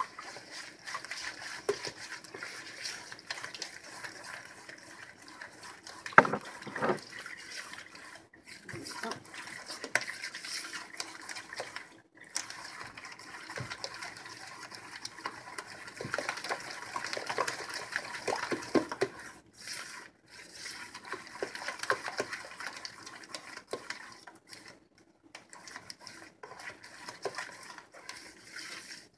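Spatula beating eggs and sugar by hand in a mixing bowl: continuous wet sloshing and scraping of the liquid batter, with a sharper knock against the bowl about six seconds in. The eggs are being beaten until the sugar blends in.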